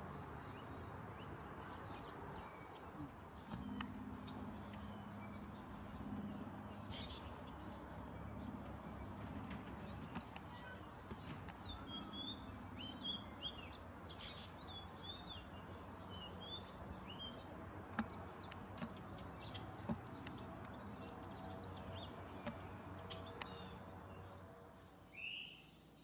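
Wild birds chirping with short, scattered calls over a steady background hiss, with one louder rising chirp near the end.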